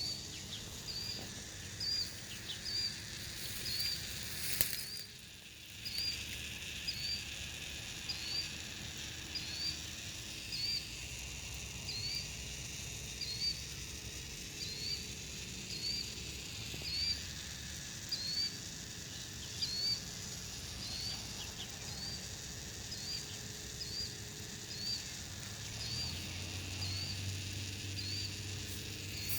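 A short, high chirp that rises in pitch, repeating about once a second over a steady hiss: the strange sound that people hear coming from a flooded street.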